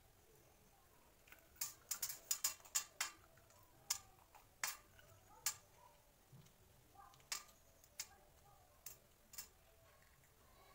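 Shell of a boiled egg being cracked and picked off by hand: a quick run of sharp little clicks and crackles about two seconds in, then single clicks every second or so.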